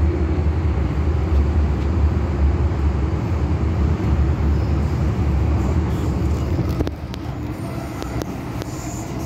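Metro-Cammell M-Train electric multiple unit heard from inside the car as it pulls out of a station: a steady low rumble of the running train on the rails, dropping a little in level about seven seconds in.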